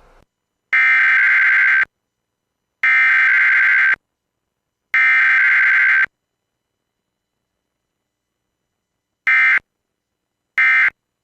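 Emergency Alert System SAME digital data bursts: the header is sent three times, each burst about a second long, and after a silence of about three seconds come two short end-of-message bursts. This is the Required Weekly Test form, header and end-of-message only, with no attention tone or voice message between them.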